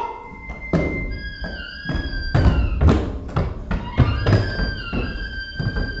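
Dramatic background music of held high tones over a run of irregular heavy thumps, roughly two a second.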